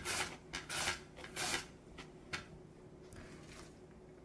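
Cucumber pushed across the julienne blade of a V-blade mandoline slicer: three quick rasping slicing strokes about half a second apart, then a faint click and a softer scrape.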